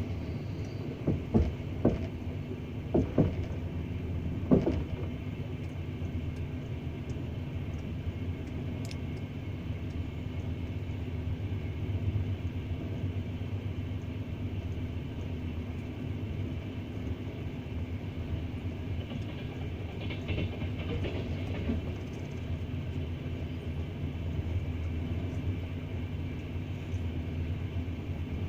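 Double-decker passenger train running on the rails: a steady low rumble, with a few sharp wheel clacks over rail joints in the first five seconds.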